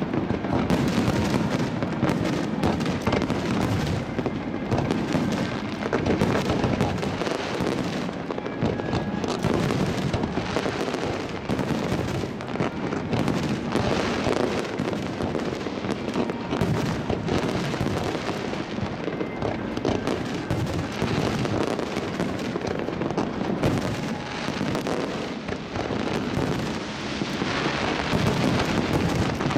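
Harbour-front fireworks barrage: many shells bursting in quick succession, a dense run of booms and crackles with no break.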